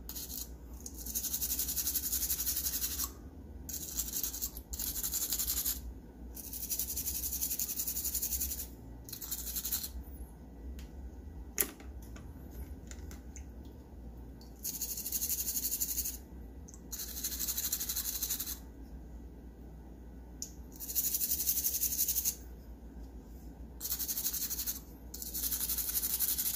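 A small stiff scrubbing brush working grime off the parts of a Hot Wheels Sizzler car, in scratchy strokes lasting a second or two with short pauses between them. There is one sharp click about halfway.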